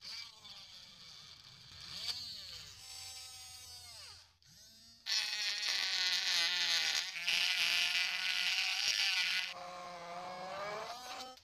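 Small hand-held DC motor drill whining, its pitch sagging and recovering under load as it bores into a small PVC block. After a short break about four seconds in, it runs louder, spinning a PVC rod in its chuck against sandpaper, with a sanding hiss over the whine. It stops at the very end.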